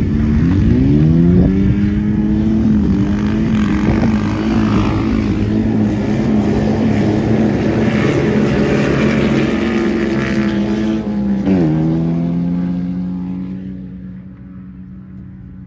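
Pickup truck engine accelerating hard down a drag strip on lake ice. The revs climb quickly, hold steady for about ten seconds, drop sharply near the end, then fade as the truck pulls away.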